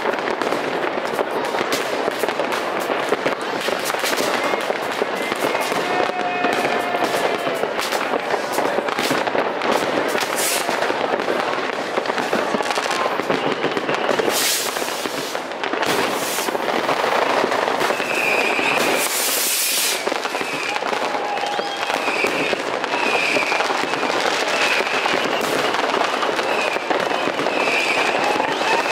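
New Year's Eve fireworks going off without a break: many rockets and firecrackers bursting and crackling at once, with a run of short high whistles in the last third.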